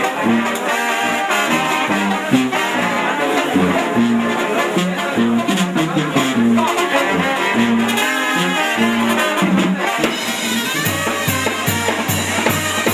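Brass-band music: horns playing over a low bass line that steps from note to note about twice a second.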